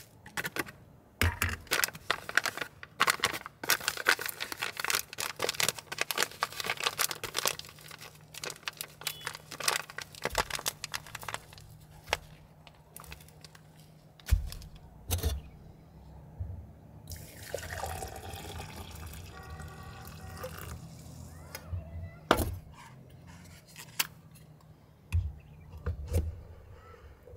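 Ground coffee being scooped from a paper bag into a glass French press, with the bag's paper crackling and the metal scoop knocking, then water being poured into the press, rising in pitch as it fills, for a few seconds about two-thirds of the way through. There are a few clinks and knocks of the press near the end.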